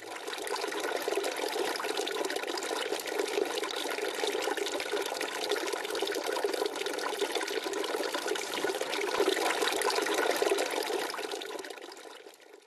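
Outdoor wall fountain running: water falling steadily from a spout into a small bowl and spilling in thin streams into the basin below. The sound fades out near the end.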